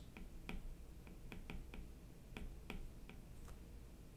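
Stylus tapping and clicking on a tablet's writing surface while an equation is handwritten: about a dozen faint, short, irregular ticks.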